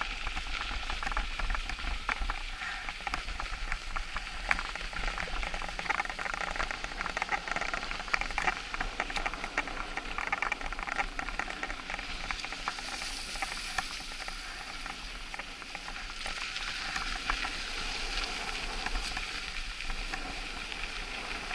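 Mountain bike tyres rolling over packed snow: a continuous fine crackling hiss, with a low rumble underneath.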